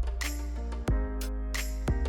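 Instrumental background music with a steady drum beat under held notes.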